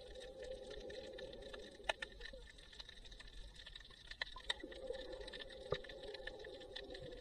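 Faint underwater sound picked up by an action camera in its waterproof housing: a muffled low rumble with scattered sharp clicks and crackles, several a second.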